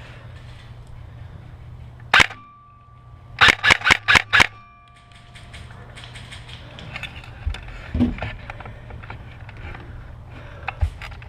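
Airsoft guns firing: a single sharp shot about two seconds in, then a quick string of about five shots a second later.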